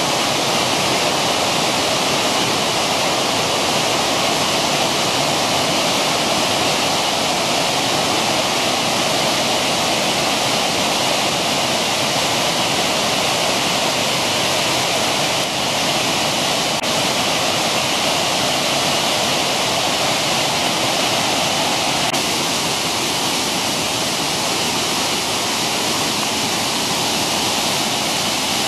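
Steady rush of white water: a mountain stream tumbling over rocks and small waterfalls.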